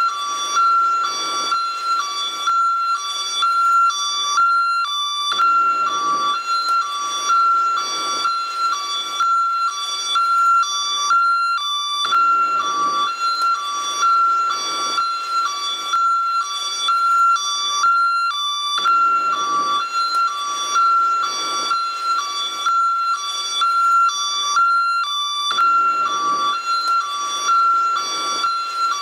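An American ambulance hi-lo siren, switching steadily back and forth between a high and a low tone with no pause.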